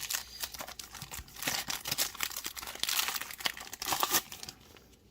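Packaging crinkling and tearing as it is pulled open by hand, dying away about four seconds in.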